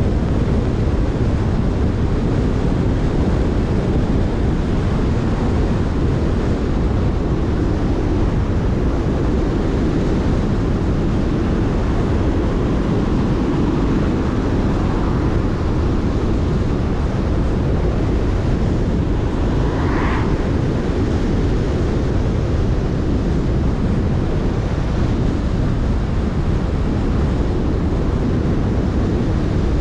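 Steady road noise from a moving car: tyre hiss on wet tarmac and wind rushing over the microphone. A brief higher-pitched sound comes about two-thirds of the way in.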